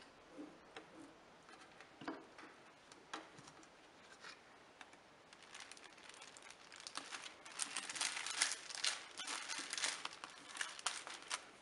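A glue stick scraping faintly over a strip of construction paper, then paper sandwich bags crinkling and rustling as the strip is pressed and smoothed onto them, louder from about halfway.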